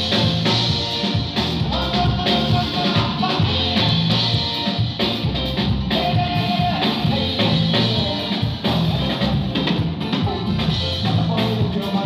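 A live band playing an up-tempo song: drum kit, electric guitar, keyboards and a singer.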